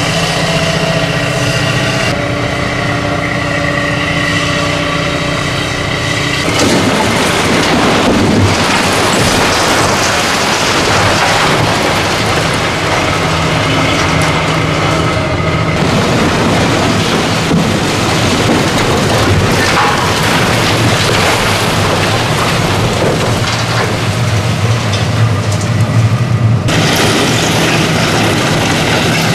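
High-reach demolition excavator's diesel engine running steadily for the first few seconds, then a dense rumble and crackle of concrete being broken and rubble falling, with scattered heavy knocks.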